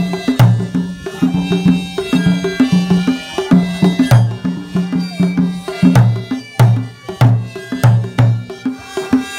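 A large skin-headed barrel drum beaten with a stick in a steady rhythm, about two strokes a second, each stroke a sharp crack followed by a deep boom.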